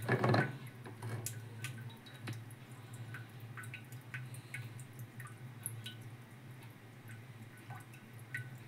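Aluminium pressure cooker on the stove: a brief metal clatter as the lid settles at the start, then a faint steady hum with scattered small ticks and drip-like pops as the lidded curry heats.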